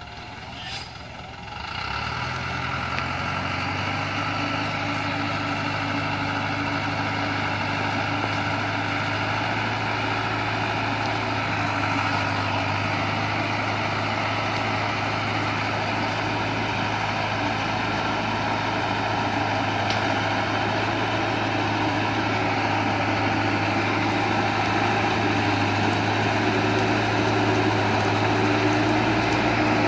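Diesel engine of a loaded Dongfeng (DFAC) Trường Giang truck running under load as it crawls forward. It picks up about two seconds in, then holds steady and grows gradually louder toward the end.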